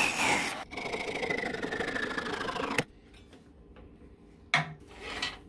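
Turning tool cutting into a spinning cherry blank on a wood lathe to part it in two, a scraping hiss with a faint whine that drops in pitch as the cut deepens. It stops abruptly under three seconds in as the piece parts off, leaving only the lathe's low hum and a short knock near the end.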